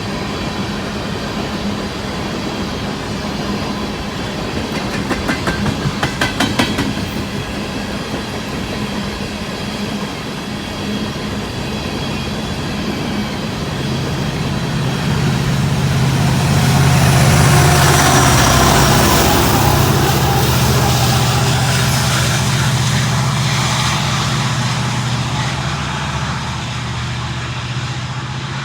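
Empty coal train's cars rolling past on steel rails, with a quick run of wheel clicks over rail joints about six seconds in. About halfway through, a diesel-electric locomotive's engine drone builds, is loudest for a few seconds, then slowly fades as it passes.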